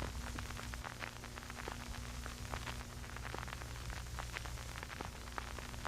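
Low steady hum with scattered crackling clicks of static throughout.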